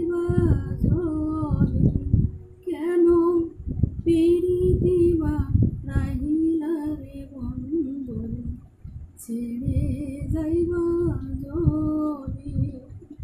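A woman singing a Bengali Baul song in a slow, ornamented melody, with music beneath her voice. She pauses briefly about two-thirds of the way through, then goes on singing.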